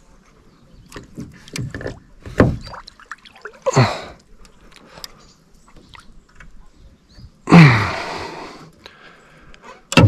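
A man's wordless grunts, then a long loud sigh, with small clicks between them, while he pulls on a rod whose hooked carp has snagged in a submerged bush.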